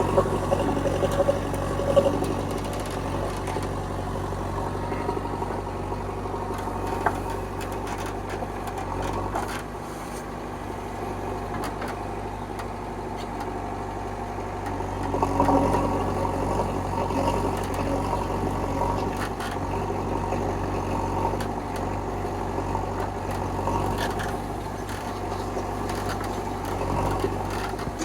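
Heavy diesel engine running steadily, swelling briefly about halfway through, with a few sharp clicks.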